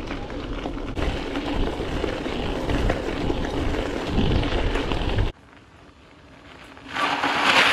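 Alpinestars AlMega DX mountain bike ridden over a gravel path, heard from a camera riding on the bike: wind on the microphone with the tyres rumbling and rattling over the gravel. About five seconds in the sound cuts suddenly to quieter open air, then tyres crunching on gravel swell up as the bike rolls close past near the end.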